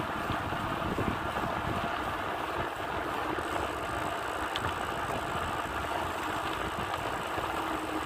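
Steady motor-vehicle traffic noise, engines running without a break.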